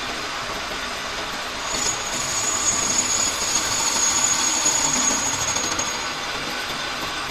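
Lathe machining a brass bush, running with a steady noisy hum. From about two seconds in to about six seconds, a high, steady squeal rises over it and the sound gets louder, then drops back to the running noise.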